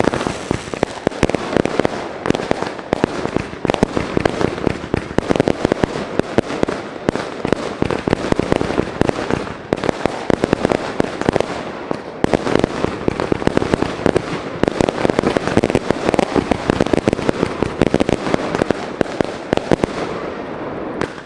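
Fireworks display with a dense, unbroken barrage of rapid crackling bangs and reports, typical of a finale.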